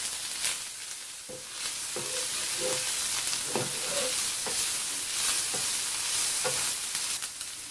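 Shredded chicken and grated carrot sizzling in a frying pan with a steady hiss, stirred by a wooden spatula that scrapes and taps against the pan in repeated short strokes.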